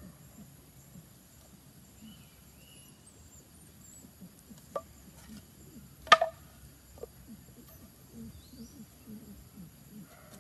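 A knife blade striking a bamboo tube: a light knock about five seconds in, one sharp crack about six seconds in, and a faint tap a second later.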